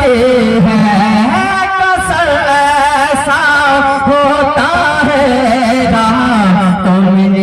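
A man singing a naat solo into a microphone, holding long ornamented notes that slide and waver in pitch.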